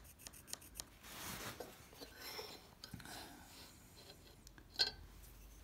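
Pencil scratching short marks on a wooden board beside a steel ruler, faint, with a few light clicks at first and a sharper tap near the end.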